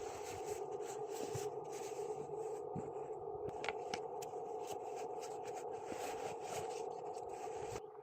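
Irregular scraping and scratching strokes over a steady hum; the scraping stops abruptly near the end.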